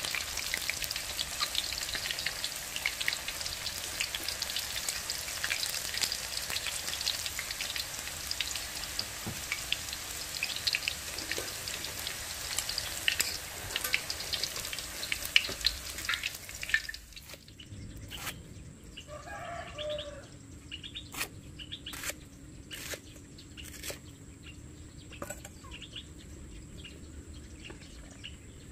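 Chicken pieces deep-frying in hot oil in a wok, a steady sizzle full of crackles. About 17 s in it stops abruptly and gives way to a quieter background with a short wavering bird call and several sharp knocks.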